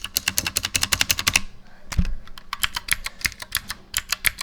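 Typing on a custom mechanical keyboard with clicky Gateron Blue switches in an aluminum frame: a fast run of sharp clicking keystrokes. There is a short pause about a second and a half in, then a single low thump, and the typing goes on.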